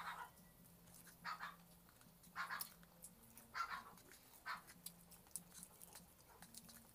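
Faint eating noises: short wet smacks and chewing sounds from a person eating a sandwich and licking their fingers, about one a second.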